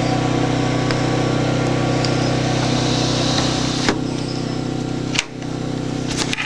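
Portable generator engine running steadily: a constant low hum with a hiss over it, briefly dipping about five seconds in.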